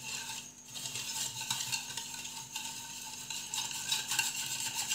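Wire whisk beating hot milk and coarse sugar in a ceramic bowl, its metal wires scraping and ticking quickly and steadily against the bowl as the sugar is stirred in to dissolve.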